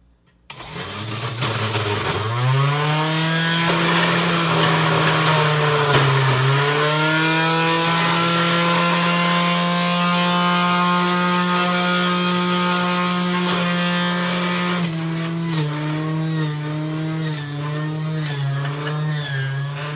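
Electric centrifugal juicer switched on: its motor spins up with a rising whine, then runs loudly as broccoli is fed through. Its pitch dips about six seconds in and wavers through the last few seconds.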